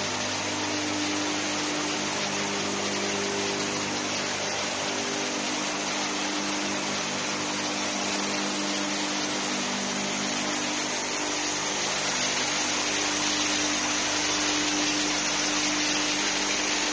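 Running machinery of an HDPE dimpled-membrane extrusion line: a steady hum of several held tones over a continuous hiss, getting slightly louder near the end.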